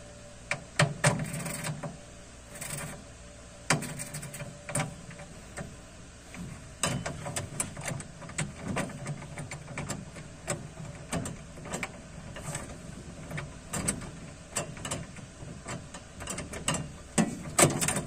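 Scattered metal clicks and knocks as a tubular cam lock's retaining nut and cam arm are handled and tightened with a tool under a steel tool cabinet, the clicks coming thicker near the end.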